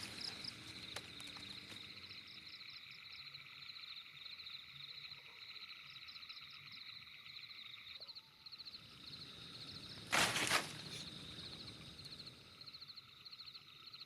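Night chorus of frogs and insects: steady high trilling with fast repeated pulsed calls. About ten seconds in comes a short, loud rush of noise lasting under a second.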